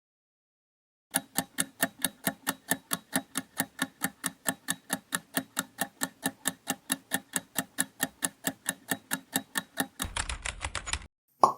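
Quiz countdown timer sound effect: clock-like ticks, about four a second, for around nine seconds. Then comes a second of faster rattling ticks and a single short pop near the end.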